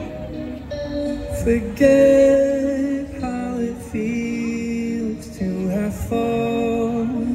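Music: a song whose notes are each held for about a second, moving from pitch to pitch.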